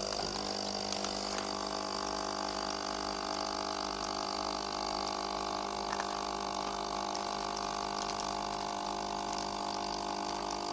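Destino capsule espresso machine's pump running steadily as it pushes hot water through a Dolce Gusto-size capsule to brew an espresso shot: an even, steady hum with a hiss of liquid.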